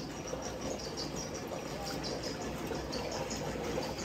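Water sloshing and trickling around men wading in a water-filled channel and working a fishing net through it.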